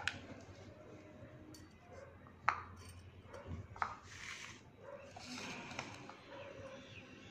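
Plastic and steel bowls knocking and clinking as they are handled and set down, three sharp knocks in all, with soft rustling as chopped fenugreek leaves are tipped into a plastic mixing bowl.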